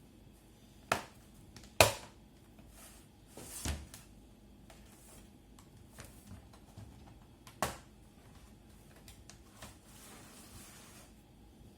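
A few sharp clicks and knocks of hands working on a laptop's plastic case: the loudest about two seconds in, another near eight seconds, and a short scraping rustle about three and a half seconds in.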